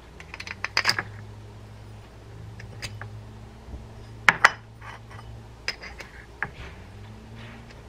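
Small metallic clicks and clinks of a Martin 3930 spinning reel's spool being slid back onto its shaft and seated: a quick run of clicks about a second in, two sharp clicks about four seconds in and a few lighter ones after, over a steady low hum.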